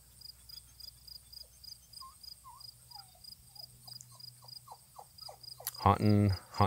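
Faint crickets chirping in a steady, even pulse, with a few faint short calls in the middle. Near the end a man's voice calls out loudly.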